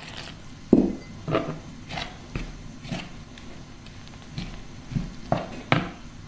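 Metal spoon stirring flour and water in a bowl, scraping and knocking against the bowl in a string of irregular short strokes as the dough is mixed.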